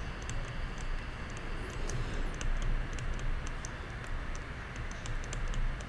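Stylus tapping and scratching on a pen tablet while handwriting is written, heard as light, irregular clicks, with a brief high squeak about two seconds in. A steady low hum runs underneath.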